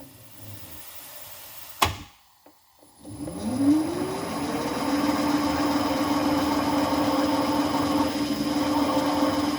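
Sharp click about two seconds in, then a second later the electric spindle motor of a cylinder-head machining machine starts up, its whine rising in pitch as it comes up to speed and then running steadily, ready to cut the valve guides down to height.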